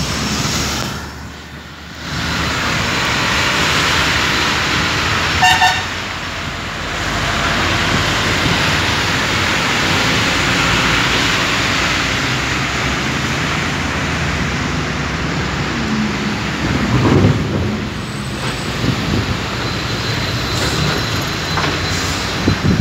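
Heavy diesel haul-truck engine running steadily, with a constant rush of noise. A short beep sounds about five seconds in, and the engine pitch rises briefly later on.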